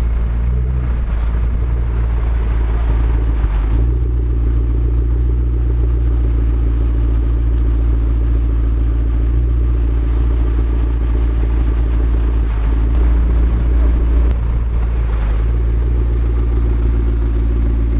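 McLaren MP4-12C's twin-turbo V8 idling steadily, with a deep, even low-pitched tone.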